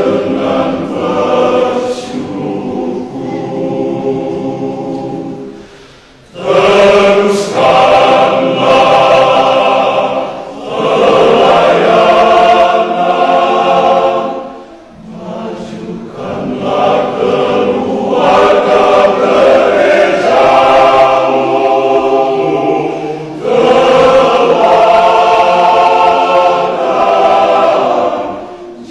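Church men's choir singing in harmony, phrase by phrase. It is softer for the first six seconds, then louder, with short breaths between phrases.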